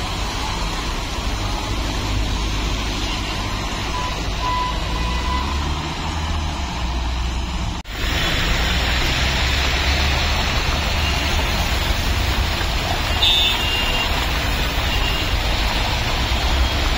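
Road traffic on a waterlogged street: car and truck engines running and tyres rolling through standing water, a steady low rumble with a hiss above it. It breaks off briefly about eight seconds in and comes back louder, with a few short high beeps later on.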